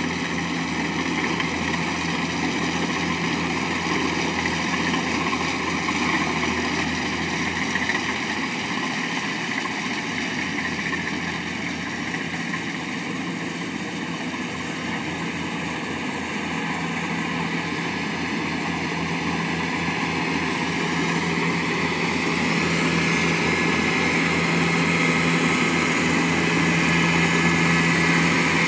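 Rice combine harvester's diesel engine and machinery running steadily as it cuts rice in a flooded paddy, getting louder over the last several seconds as it comes close.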